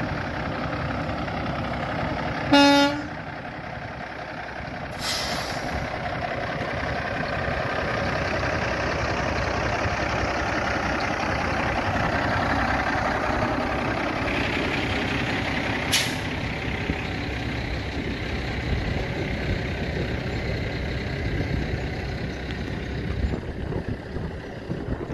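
2010 Kenworth day cab truck tractor's diesel engine idling steadily, with one short horn toot about two and a half seconds in, a brief hiss of air from the air brakes about five seconds in, and a single sharp pop a little past the middle.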